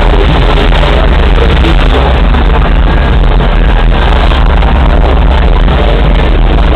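Loud, distorted music mixed with the engine of an off-road 4x4 working as it climbs a dirt mound.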